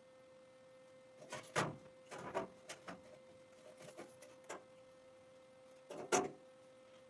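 Scattered short knocks, clunks and scrapes of parts being handled, the loudest about a second and a half in and again near the end, over a faint steady hum.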